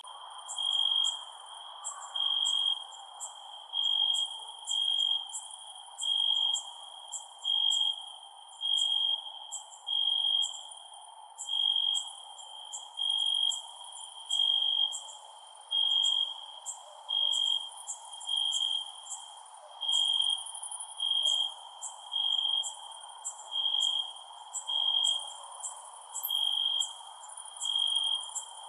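Crickets chirping at night: one loud, high-pitched chirp repeating at an even pace, a little slower than once a second, over many shorter, higher, quicker chirps from other insects and a faint steady hiss.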